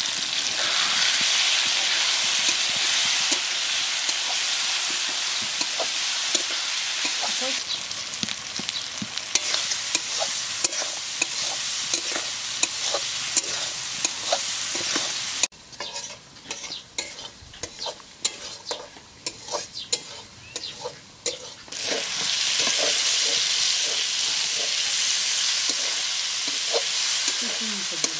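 Spice masala frying and sizzling in a metal kadai while a metal spatula stirs it, scraping and clicking against the pan. About halfway through, the sizzle cuts off suddenly, leaving mostly the spatula's clicks and scrapes, then the sizzling returns.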